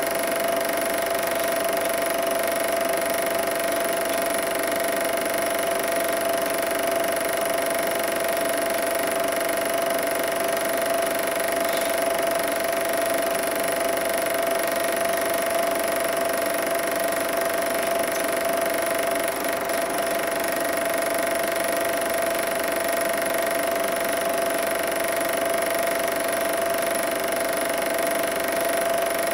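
Super 8 film projector running: a steady mechanical whirr of the motor and film transport, with a constant hum, unchanging throughout.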